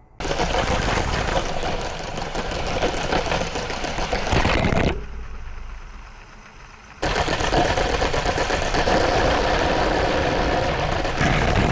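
Lego train running along plastic track, its motor and wheels giving a dense, steady rattle. The rattle drops much quieter about five seconds in and comes back loud about two seconds later.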